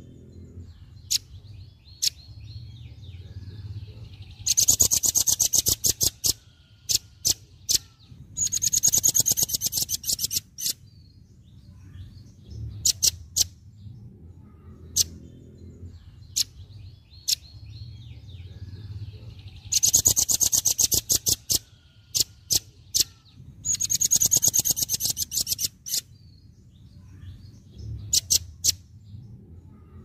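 Velvet-fronted nuthatch calling: scattered sharp high single chips and loud rapid chattering trills lasting one and a half to two seconds. The same run of chips and two trills comes round again about halfway through. A faint low rumble lies underneath.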